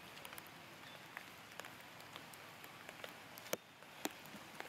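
Outdoor ambience: a steady faint hiss with scattered sharp clicks and crackles, two louder clicks a little over halfway through.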